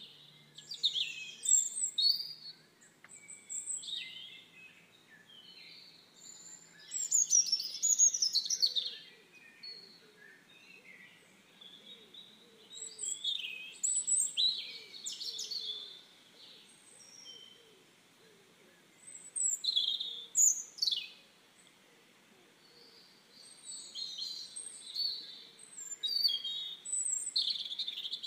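Songbirds chirping and calling in bursts every few seconds, with short high notes and quick downward-sweeping whistles.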